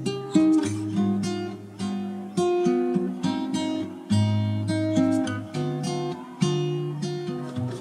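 Background music: acoustic guitar playing plucked notes and strummed chords, each note ringing and dying away.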